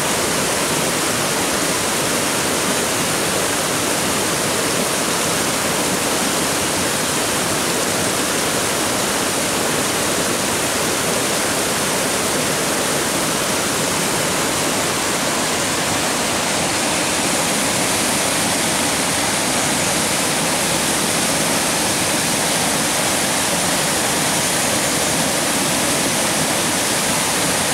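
Spring-fed mountain stream cascading over rocks: a steady, even rush of falling water.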